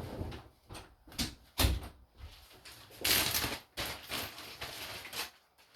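Objects being handled: a series of short clicks and knocks of small hard items set down and moved about, with a brief rustle about three seconds in.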